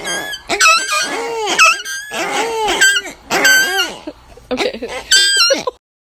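Several rubber squeaky dog toys squeezed over and over, giving overlapping squeaks and honks that bend up and down in pitch. They stop just before the end.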